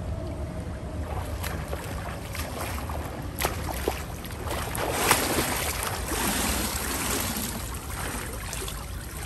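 Water splashing from a swimmer's freestyle arm strokes and kicks, starting about a second in, with a few sharp slaps and the loudest splashing around the middle. A low steady rumble runs underneath.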